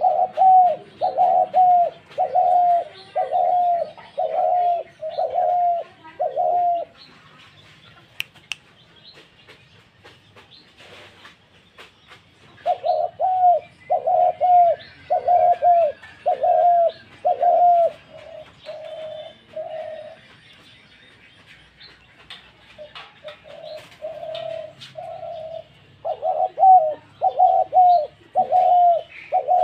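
Spotted dove cooing in three bouts of evenly repeated coos, about one a second, with pauses of a few seconds between bouts. This is the call the title names 'mair dak', the dove's fighting call.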